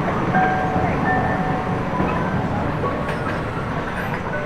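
Vienna tram running on its rails: a steady rumble with brief faint high tones scattered through it.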